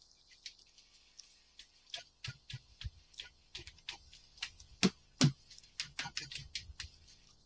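Irregular light clicks and taps of hand work, with two louder knocks about five seconds in.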